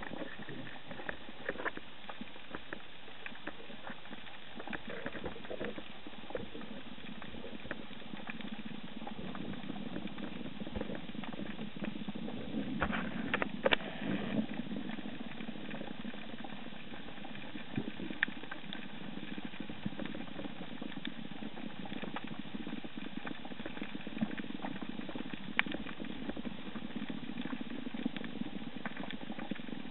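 Underwater reef ambience picked up through the camera, a steady hiss with scattered crackling clicks, and a louder cluster of clicks about halfway through.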